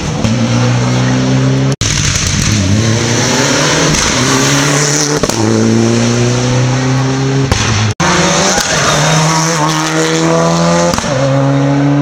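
Rally car engine at full throttle, pulling up through the gears: the pitch climbs over a couple of seconds and drops at each upshift, loud throughout.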